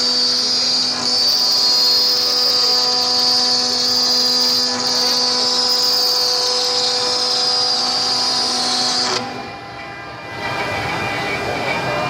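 CNC cutting machine running with a steady high whine over a lower hum. About nine seconds in the whine cuts off, and after a brief dip a rougher noise without the steady tones follows.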